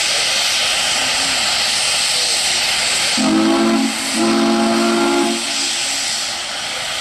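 Chime steam whistle of a Chinese QJ 2-10-2 steam locomotive sounding two blasts about three seconds in, a short one then a longer one, each a chord of several low tones. A loud steady hiss of steam runs underneath.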